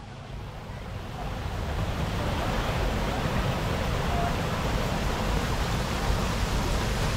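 Steady rush of falling water from a garden waterfall, swelling up over the first couple of seconds and then holding even.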